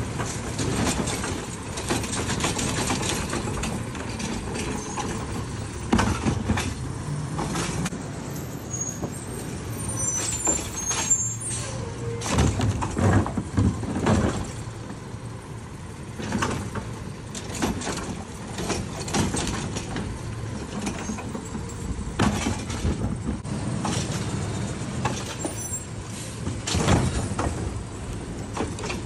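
Automated side-loader garbage truck emptying wheelie bins. The diesel engine runs steadily while the hydraulic arm lifts, tips and sets down the carts. Bins and trash hit the hopper in repeated clanks and thuds, loudest about halfway through.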